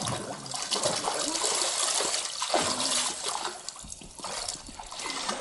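Water splashing and sloshing as people wade through river water, easing off briefly about four seconds in.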